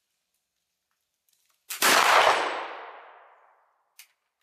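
A single shot from a Hall breech-loading flintlock rifle firing a black-powder charge. A small crack from the priming flash in the pan comes a split second before the loud main report, which then dies away over about a second and a half.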